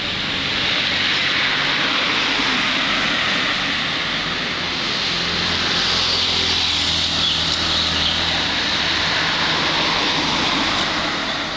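Street traffic: a steady wash of vehicle noise with a low, even engine hum underneath.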